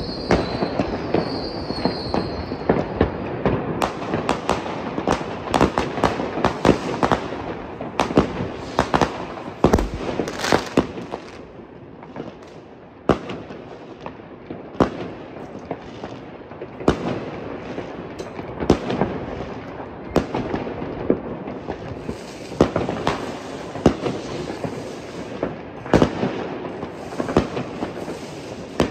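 Many fireworks and firecrackers going off at once across the surrounding streets: a continuous crackle of bangs and pops near and far. It thins out briefly around the middle, and a high warbling whistle sounds in the first few seconds.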